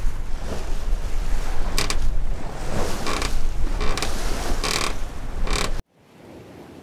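Sailboat under way: steady wind buffeting the microphone over rushing water, with about five short, sharp creaks. The sound cuts off suddenly near the end.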